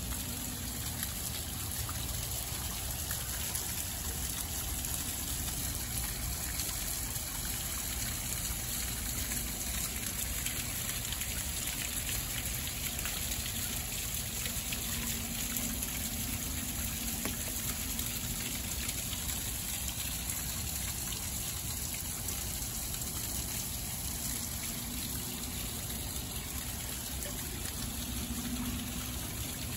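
Steady rush of running water, trickling and splashing into a pond.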